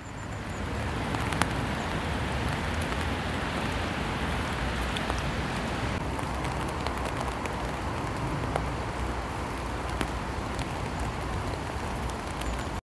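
Steady rain, with scattered raindrop ticks over an even hiss and a low rumble underneath; the sound cuts out for a moment near the end.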